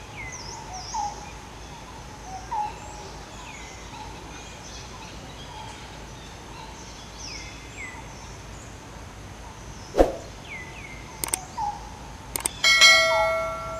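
Outdoor ambience with birds calling in short, falling chirps again and again. About ten seconds in comes a sharp click, then a few lighter clicks, and near the end a bright, bell-like chime of several tones that fades: the sound effect of an on-screen subscribe-button animation.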